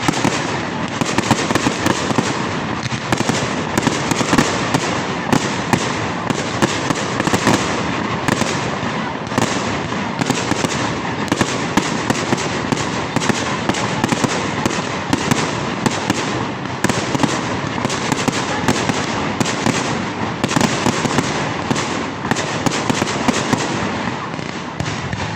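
Fireworks going off in a dense, continuous barrage of sharp cracks and bangs, many per second, with no pause.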